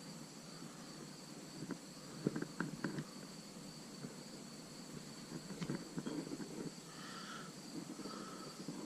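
Soft, scattered clicks and taps of small parts being handled, in two short clusters, over a faint steady high whine.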